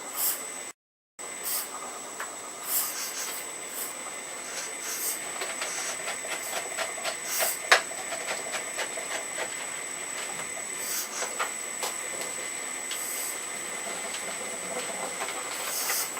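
Earth Digger 4200XL RC hydraulic excavator working soil: a steady high whine from its hydraulic system, with short hisses coming and going and many small clicks and scrapes of the bucket in the soil. One sharp click about halfway through is the loudest sound.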